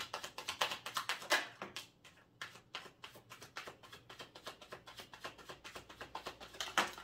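A deck of tarot cards being shuffled by hand, a quick, irregular run of soft card clicks and slaps, with cards dealt out onto the table.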